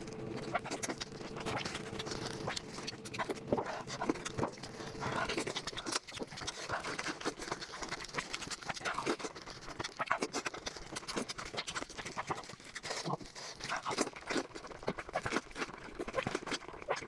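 Close-miked eating sounds: chewing and mouth noises, with many quick, irregular clicks and smacks.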